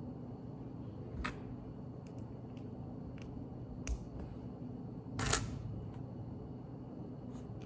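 Small plastic Lego pieces being handled and snapped together: scattered light clicks and taps, with a short louder clatter about five seconds in, over a faint steady hum.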